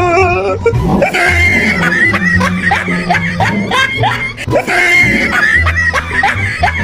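Background music with a steady, pulsing bass line, overlaid with many short, rising vocal cries in quick succession, like screaming and laughter.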